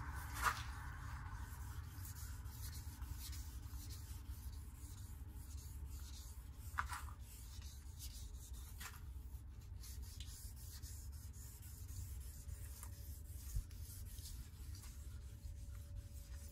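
Wet/dry sandpaper rubbing steadily on a boat hull's clear-coated metal-flake paint: wet sanding to cut back heavy oxidation and earlier sanding scratches. The rubbing is faint over a low steady rumble, with a few light knocks.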